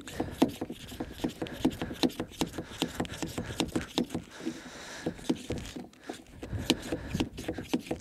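Small lightweight hand pump inflating a bicycle-size front tyre: quick, rhythmic pumping strokes, each a short rasping hiss and click, several a second, with a brief pause about six seconds in.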